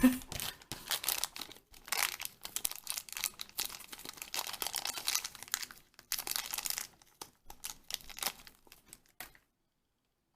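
Thin plastic blind-pack wrapper being handled, crinkling and tearing in quick, irregular crackles as a Shopkins pack is opened. It cuts off suddenly near the end.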